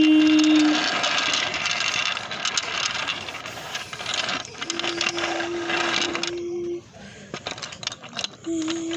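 Toy trains clicking and rattling as they are handled and run, with a steady humming tone that stops about a second in, returns for a couple of seconds in the middle, and comes back near the end.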